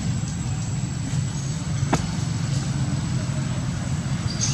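Steady low rumble with one faint click about two seconds in.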